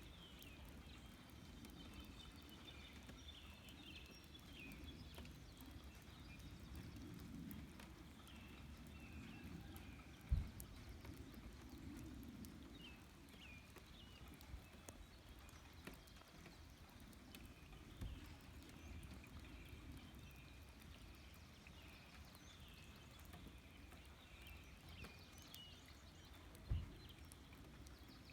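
Faint outdoor nature ambience: many short, high chirps scattered throughout over a low rumble. Three dull thumps stand out as the loudest sounds, about ten, eighteen and twenty-seven seconds in.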